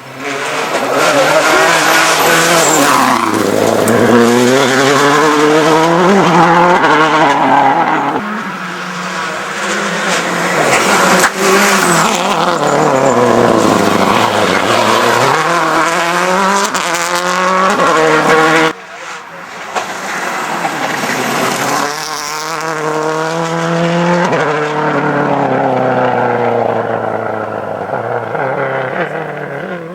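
Subaru Impreza WRX STI rally car's turbocharged flat-four engine pulling hard. Its note climbs and drops over and over as it accelerates, shifts and lifts for corners. The sound cuts sharply about two-thirds of the way through, then the engine rises again.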